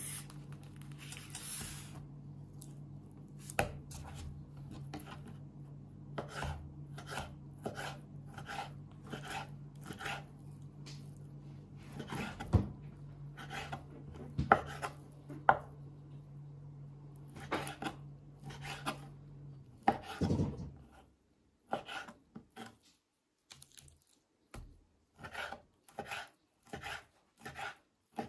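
Kitchen knife cutting raw chicken breast into small pieces on a wooden cutting board: short strokes against the board, about two a second. A steady low hum runs underneath and stops about two-thirds of the way through.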